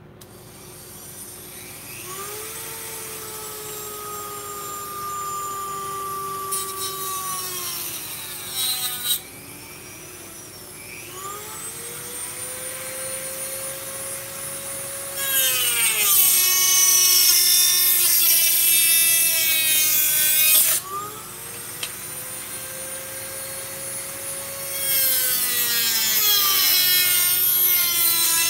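Flexible-shaft rotary tool with a small cutoff wheel cutting a plastic blaster shell part. Its motor spins up with a rising whine three times. The whine drops in pitch as the wheel bites, with two loud stretches of grinding, one in the middle and one near the end.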